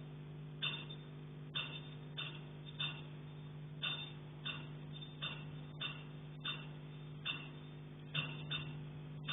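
Repeated knocking from the attic and roof overhead: sharp single knocks, about one or two a second at uneven spacing, over a steady low hum.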